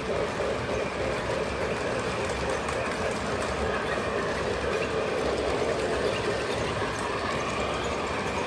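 O gauge model trains running on a layout: a steady whir and rumble of the electric motors and wheels on the track, with light rhythmic clicking over the rail joints.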